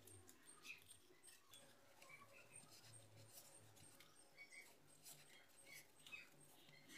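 Near silence, with faint rustles and small clicks of a sheet of paper being rolled into a tube and pressed down by hand.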